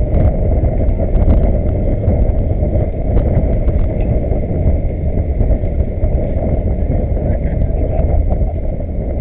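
Loud, steady rumble of wind buffeting the camera's microphone, mixed with the rush of choppy water past a boat.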